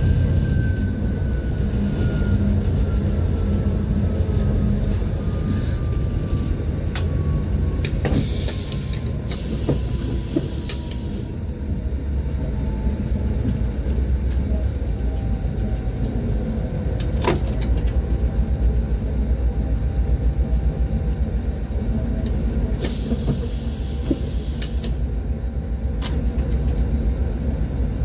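Train running on the rails: a steady heavy rumble with scattered sharp clicks and a faint tone that slowly falls in pitch. Two short high hisses come about ten seconds in and again near the end.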